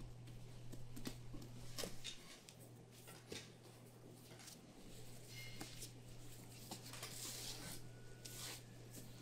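Faint work sounds: a steady low hum with scattered light clicks and rustles as gloved hands press and fold a long roll of soft dough on a floured table, and a brief hiss late on.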